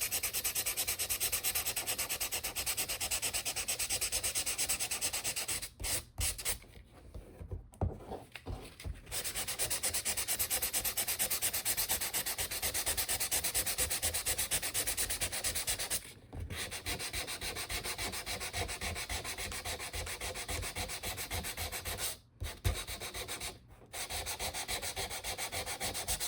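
Hand sanding laser-cut wood with 320-grit sandpaper to take off laser burn marks: fast, even back-and-forth rubbing strokes that stop briefly several times.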